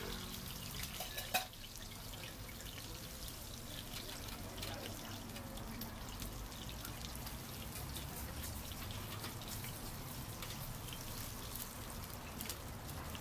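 Scallion pancakes deep-frying in a wok of hot oil, the oil sizzling and crackling steadily. A single sharp knock about a second and a half in.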